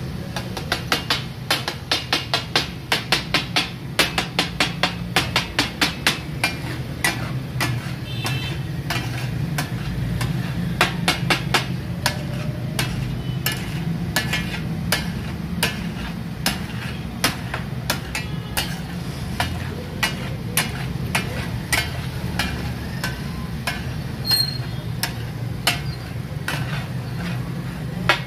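Two metal spatulas clacking against a large flat iron griddle in the rhythmic 'taka tak' chopping and mixing of brain masala. The strikes come quickly, about three a second, for the first several seconds, then become sparser, over a steady low hum.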